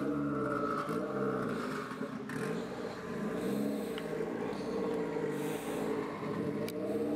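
Car engine running at low speed as the car creeps along, its revs rising and falling every second or two, with a couple of short sharp clicks.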